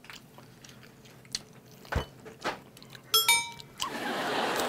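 A person chewing and biting a crunchy snack close to the microphone, with a few scattered crisp crunches. A brief bright ringing sound comes a little past three seconds in.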